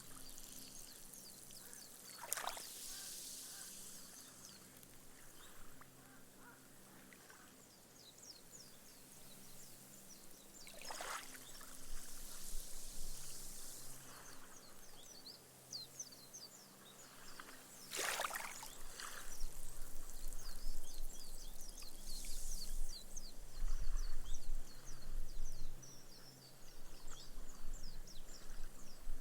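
Small, gentle waves lapping onto a sandy beach and soaking into the sand, the foam fizzing and crackling as its bubbles burst. The wash swells and fades slowly, with three brief splashes of a lapping ripple spread through it.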